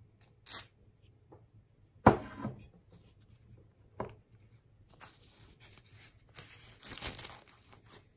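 A brief spray of WD-40 onto a paper towel, then a sharp knock and a couple of lighter ones. After that comes paper towel rustling and crinkling as it wipes down the fan motor's rotor shaft to clean it before the bearing assembly is pulled off.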